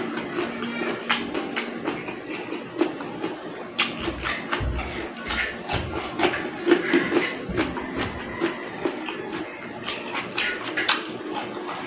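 Close-up eating sounds of a person eating with his fingers: chewing, lip smacks and finger-sucking, giving a steady stream of small wet clicks. There are a few low bumps about four and seven and a half seconds in.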